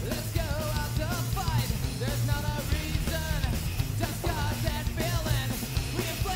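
Background rock music with a singing voice.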